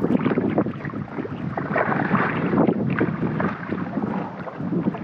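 Choppy sea water slapping and splashing irregularly against a kayak hull, with wind buffeting the microphone.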